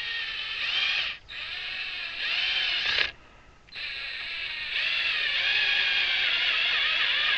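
Homemade bee-hive lifter's pulley mechanism running under test, with a wavering, whining squeal that runs in three stretches, stopping briefly about a second in and again around three seconds in.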